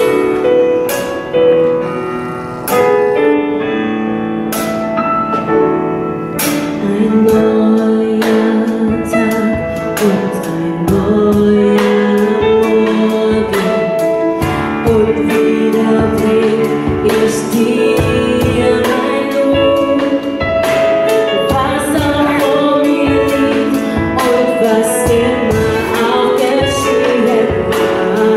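Live gospel music: women's voices singing in harmony with keyboard accompaniment and hand percussion keeping a beat.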